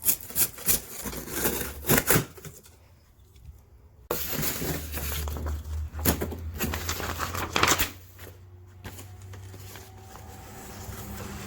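Cardboard box and its packing being opened by hand. First come sharp rustles and clicks, then, after a short pause, a few seconds of steady crinkling and tearing of packaging.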